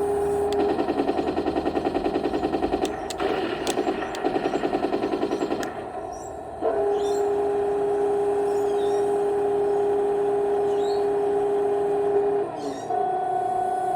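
Electronic sound effects from a Henglong T-72 RC tank's onboard sound unit and small speaker: two bursts of rapid machine-gun rattle in the first six seconds, then a long steady electronic hum that shifts in pitch near the end.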